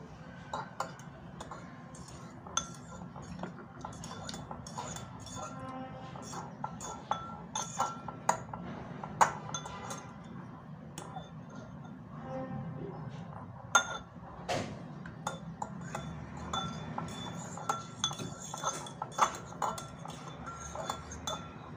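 A utensil clinking and tapping irregularly against a glass bowl while working a mashed-potato mixture, with one sharper knock about two-thirds of the way in.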